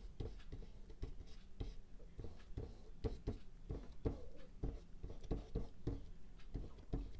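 Bristle brush scrubbing oil paint onto a canvas in quick, repeated back-and-forth strokes, a soft irregular scratching about three or four times a second.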